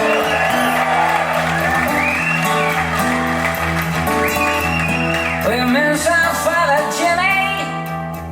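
A song playing, with a steady bass line and guitar. Over them runs a lead melody with long sliding, bending notes but no words.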